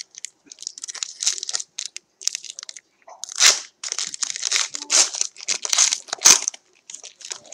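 Crinkling and rustling of a foil trading-card pack wrapper and cards being handled and flipped, in irregular bursts, louder about halfway through.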